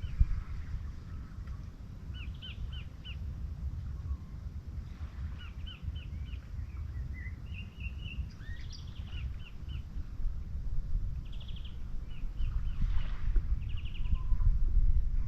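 Small birds chirping in quick runs of three to five short notes, repeated many times, over a steady low rumble.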